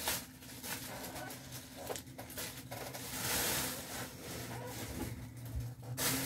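Packaging rustling and crinkling as items are handled and unpacked, in uneven bursts with a few light clicks. It is loudest about three seconds in and stops abruptly near the end.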